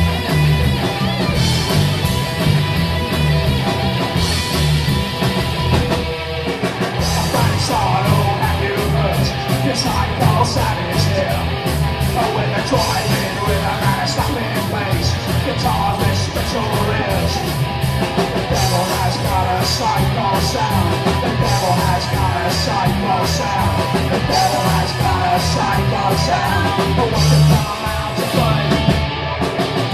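A live psychobilly band playing loud and fast: slapped upright double bass, electric guitars and drums, with shouted singing over them.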